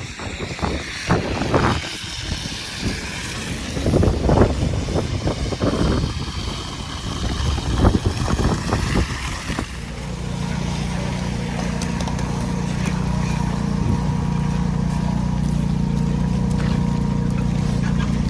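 Irregular gusts of wind rumbling on the microphone, then from about ten seconds in a vehicle engine running with a steady low hum.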